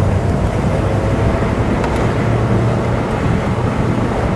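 1955 Chevrolet Bel Air's Power Pack V8 rumbling steadily while cruising, heard from inside the open convertible along with road and wind noise.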